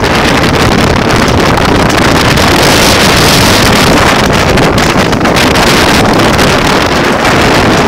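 Summer thunderstorm wind gusting hard across the microphone, a loud, steady rush that starts suddenly and holds level throughout.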